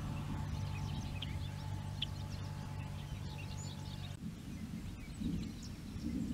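Birds chirping over a low steady hum, which cuts off suddenly about four seconds in; after that a low, uneven rumble continues under the chirps.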